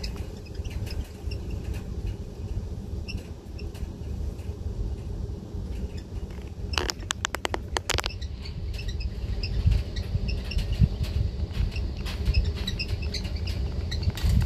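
Breeze rumbling on the microphone as it spins a foil pinwheel at an open window, with scattered short high chirps throughout and a quick run of about eight clicks about seven seconds in.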